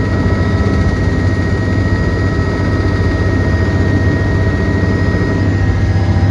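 Helicopter engine and rotor noise heard from inside the cabin, a loud steady drone.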